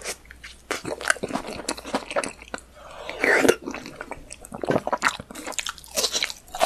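Close-miked mukbang eating sounds: wet chewing and lip-smacking of a mouthful of spicy stir-fried meat, with irregular clicks and a few crunchy bites, and a louder bite near the end.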